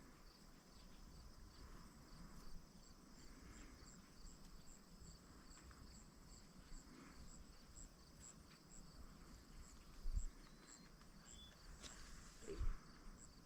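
Faint crickets chirping steadily, about two or three chirps a second. Two soft low thumps in the second half.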